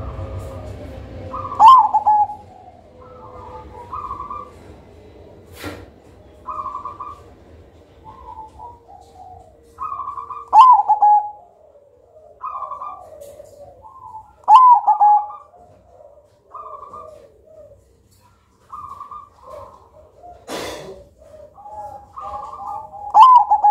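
Perkutut (zebra dove) cooing: repeated song phrases of short staccato coos, four of them ending in a loud swooping, falling note.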